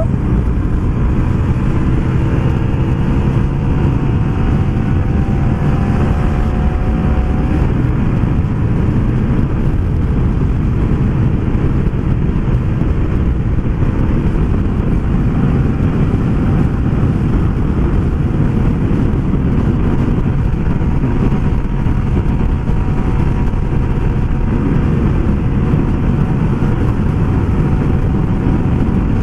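Riding a Yamaha LC135 motorcycle: a steady, loud rush of wind over the microphone, with the single-cylinder four-stroke engine running underneath. The engine's pitch climbs slowly in the first several seconds as the bike picks up speed.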